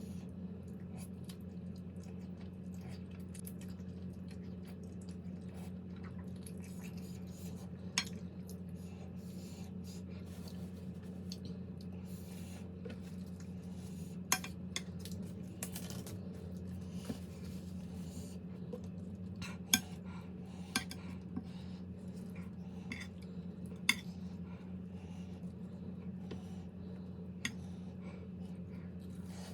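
Eating utensils clinking now and then against plates and bowls, a scattering of sharp clinks over a steady low hum.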